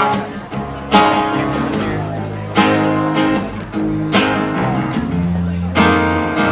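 Acoustic guitar strumming chords live, a fresh strum about every second and a half, each chord ringing on until the next.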